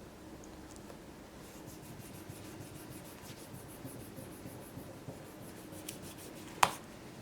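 Faint rapid rubbing or scraping strokes, then a single sharp click near the end.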